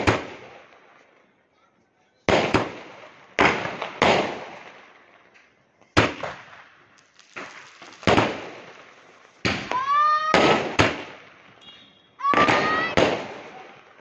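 Aerial firework shells bursting overhead, about a dozen sharp bangs at uneven intervals, each dying away in an echoing tail.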